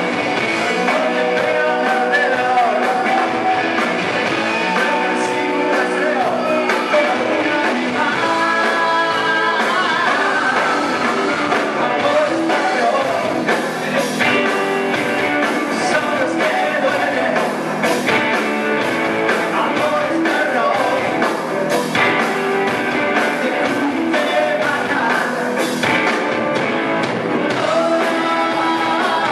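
Live rock band playing loudly: distorted electric guitars and drums, with a lead vocal sung over them.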